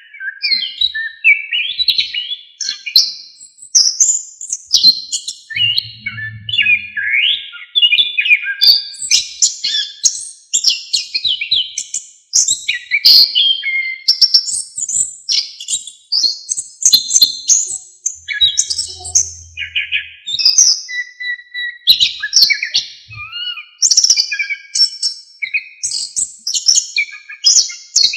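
Chestnut-capped thrush (anis kembang) singing a fast, unbroken run of varied, high warbling and twittering phrases.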